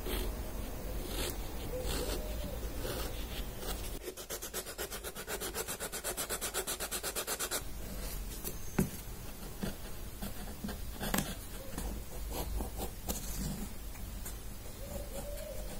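Hand chisel paring thin shavings off a Swiss stone pine (cembra) wing blank in repeated scraping strokes, with a few seconds of fast, even scraping a third of the way in and a couple of sharp taps later.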